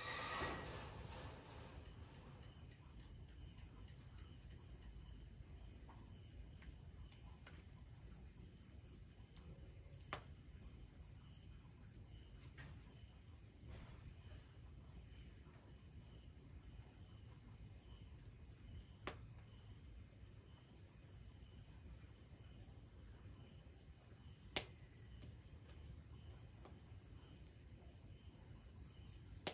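Near silence with faint insect chirping: an even, high-pitched pulsing that stops twice for a couple of seconds. Three faint clicks sound at long intervals.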